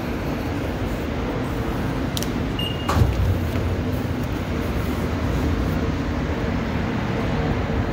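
Metro station hall with a steady low rumble of trains and ventilation. About three seconds in, a fare gate gives a short high beep, followed by a loud clunk as its turnstile lets someone through.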